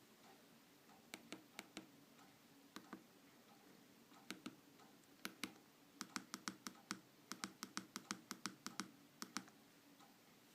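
A mobile phone being operated by hand: a run of sharp taps and clicks in short irregular clusters. They come thickest in a quick string of about twenty in the second half, over a faint low hum.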